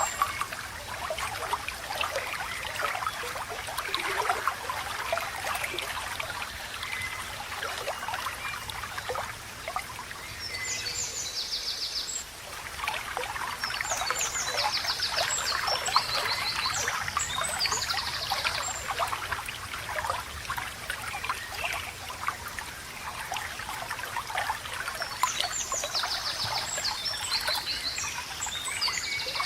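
Water trickling and babbling in a small stream, with a bird singing several bursts of fast, high trills over it.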